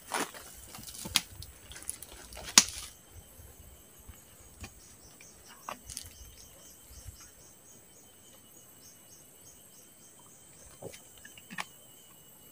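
Knocks and rustling of gear being handled, the loudest knock about two and a half seconds in. Then insects chirping in a quick series of short high notes for several seconds, over a faint steady high insect drone.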